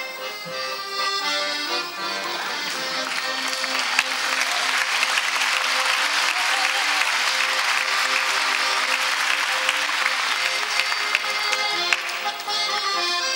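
Accordion music playing, with audience applause rising over it from about three seconds in and dying away near the end.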